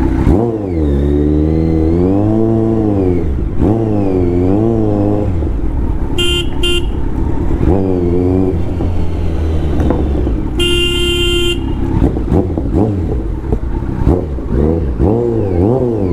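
Kawasaki Z900 inline-four engine revving up and down while riding, its pitch rising and falling repeatedly. A vehicle horn beeps twice briefly about six seconds in, then sounds one longer blast about ten and a half seconds in.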